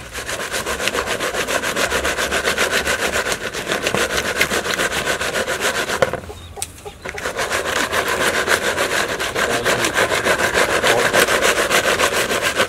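Seasoned insects swirled and shaken in a plastic bowl, scraping and rattling against it in a fast, even rhythm of about eight strokes a second. The rhythm breaks off for about a second roughly halfway through.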